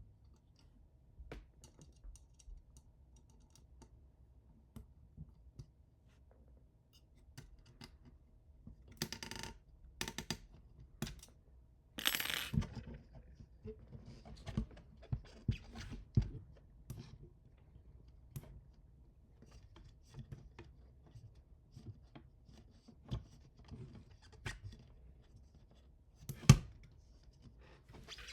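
Hand assembly of 3D printer frame parts: scattered small clicks and light knocks, with a couple of short scraping spells and one sharper knock near the end.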